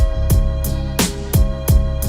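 Background music with a steady beat: deep kick drums and sharp snare hits over a held note.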